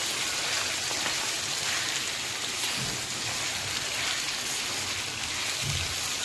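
Marinated chicken pieces sizzling in hot oil in a nonstick wok: a steady frying hiss.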